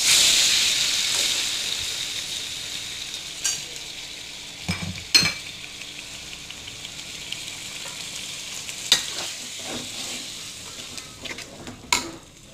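Wet blended spice paste dropped into hot oil in a metal wok: a loud sizzle that starts suddenly and slowly dies down as the paste begins to sauté. A spatula stirring the paste knocks and scrapes against the wok a few times.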